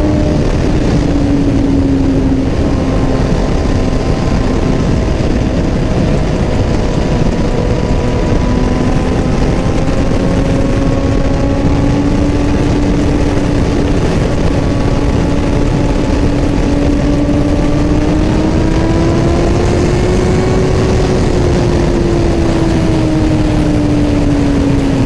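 Motorcycle engine running at a steady cruising pitch over a heavy rush of wind and road noise. The engine note rises a little a few seconds before the end and then eases off again.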